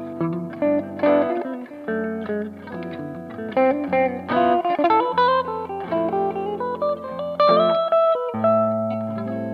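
Electric guitar played through a BOSS OD-2 Turbo OverDrive pedal: chords and single-note lines over held low notes.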